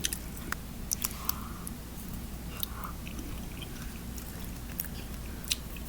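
A person chewing a mouthful of tteokbokki (chewy rice cakes and fish cake in sauce) close to the microphone, with scattered small wet mouth clicks.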